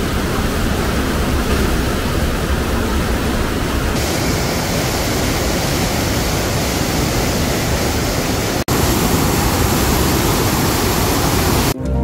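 Steady rush of a rain-swollen mountain stream in full flow, an even hiss with no let-up, breaking off for an instant about two-thirds through. Plucked-string music comes in right at the end.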